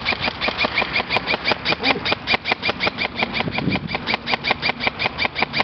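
Airsoft electric gun firing full-auto in a long, steady stream, about eight shots a second.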